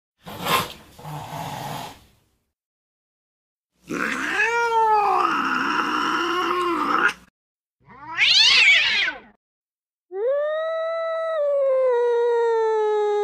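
A run of recorded angry domestic cat sounds played one after another. First a short noisy hiss, then a wavering yowl, then a shrill screech that rises and falls, and last a long drawn-out yowl held on a steady, slightly falling pitch.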